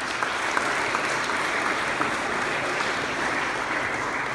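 Audience applauding, steady clapping throughout.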